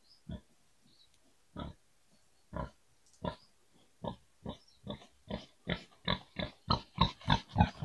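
Tame wild boar grunting in short single grunts, at first about one a second, then coming faster, about three a second, and growing louder toward the end.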